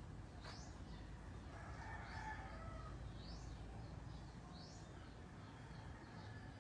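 Faint bird calls: a short rising chirp repeated about once a second, with a longer, lower call about two seconds in, over a low background rumble.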